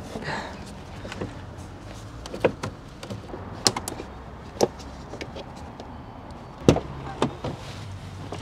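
Hard plastic clicks and knocks as the loose radiator fan shroud cover of a Mercedes Sprinter van is pressed back onto its clips, several separate snaps with a louder knock near the end.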